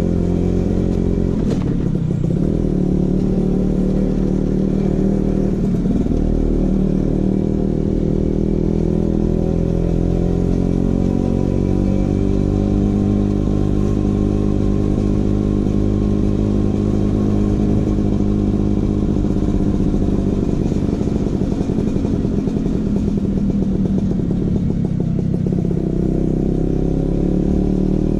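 Vespa PX 150's single-cylinder two-stroke engine running through a DRC Victory racing exhaust. It holds a steady pitch, with engine speed dipping and rising slowly a few times.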